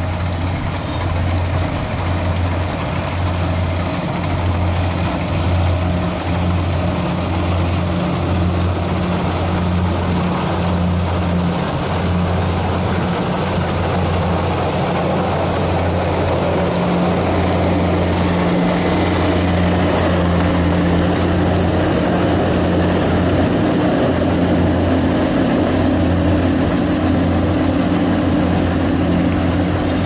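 Kubota RT120 single-cylinder diesel engine of a converted tracked harvester running steadily under load as the machine crawls through a rice paddy. A higher steady whine joins about halfway through.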